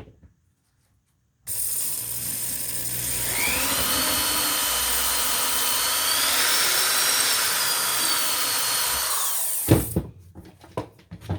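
Electric drill starting up and running steadily with a high whine while the bit bores through an acrylic harmonica slider, the whine rising in pitch a couple of seconds in. The drill stops abruptly near the end, followed by a few sharp knocks.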